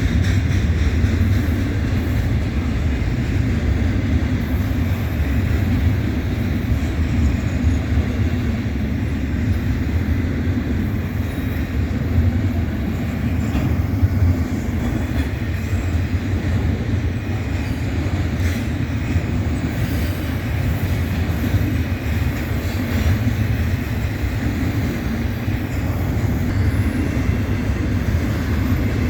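Freight train cars rolling past: a steady rumble of steel wheels on the rails, with one brief louder knock about halfway through.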